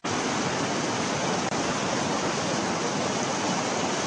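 Steady rushing of a shallow, stony river: an even hiss with no separate events. It drops out for an instant right at the start.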